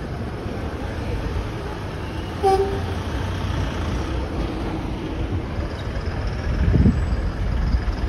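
Low, steady street-traffic rumble with a single short horn toot about two and a half seconds in.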